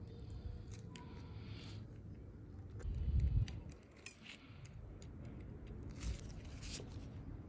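Small sharp clicks and light scraping of a fine metal tool against a quartz watch movement, with a dull low thump about three seconds in.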